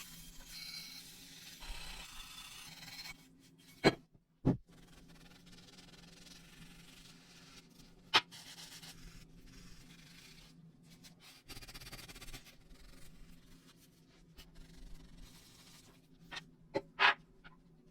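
Hand work on an old metal lamp: rubbing and scraping, broken by a few sharp taps or clicks, two about four seconds in, one about eight seconds in and a small cluster near the end.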